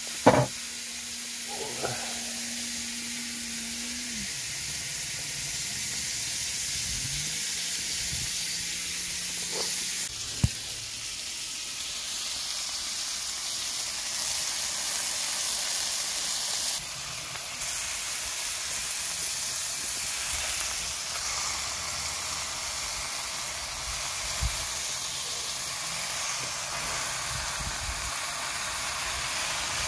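Beef steaks and green chiles sizzling in a frying pan over a portable butane camp stove, a steady hiss throughout. Two sharp clacks, one near the start and one about ten seconds in.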